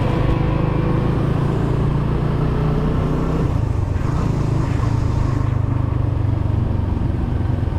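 Vehicle driving: a steady low rumble of engine and road noise, with a brief rise in hiss about halfway through.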